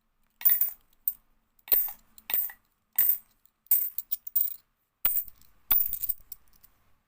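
Cupronickel 50p coins clinking against one another as they are sorted by hand: about eight separate sharp metallic clinks with a bright high ring, spread unevenly over several seconds.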